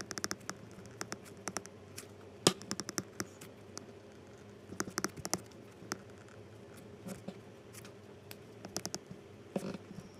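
Stylus tapping and scratching on a tablet screen during handwriting: light clicks in irregular clusters, the sharpest about two and a half seconds in, over a faint steady hum.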